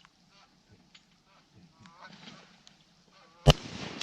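Faint, short quacking duck calls in quick series, then a single loud shotgun blast about three and a half seconds in.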